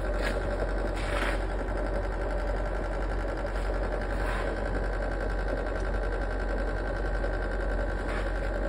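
Small electric motor humming steadily as it runs the DIY used-engine-oil burner, with a few brief hisses over the hum.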